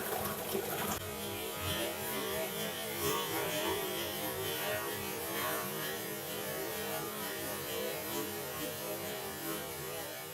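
Electric motor of a homemade drilling and sanding machine, built from an old belt sander, running with a steady hum. About a second in, the high-pitched noise drops away.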